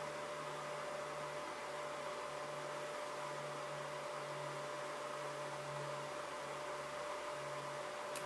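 Old Weller transformer soldering gun humming steadily with the trigger held while heating the solder joint on a Deans connector spade, over faint hiss; the low hum fades out near the end.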